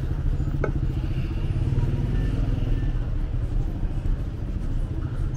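Street traffic: a steady low rumble of motor-vehicle engines, a motorcycle among them.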